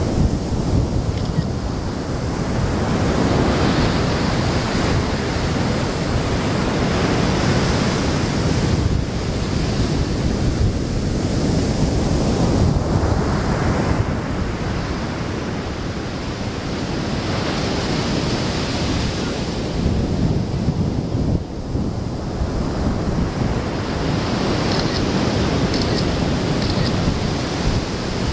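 Rough North Sea surf breaking and rushing up a sandy beach, swelling and easing every few seconds, with strong wind buffeting the microphone.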